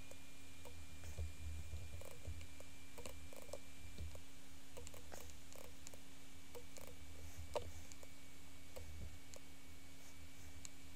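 Scattered, irregular clicks of a computer mouse being worked at a desk, one sharper click about two-thirds of the way through, over a steady low electrical hum.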